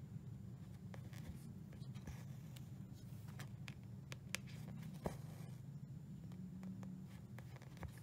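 Cross-stitch needle poking through 14-count aida fabric and floss being drawn through, heard as small irregular ticks over a steady low hum.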